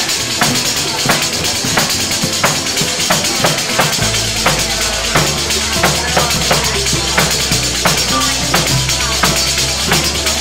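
Pizzica folk dance music with a fast, steady beat of drum hits, about three a second, and rattling percussion; a low bass comes in about four seconds in.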